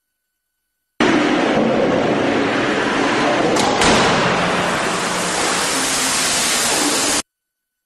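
Crash-test impact on a truck cab: a loud, even rushing noise that starts suddenly, with two sharp knocks in quick succession about midway, then cuts off abruptly.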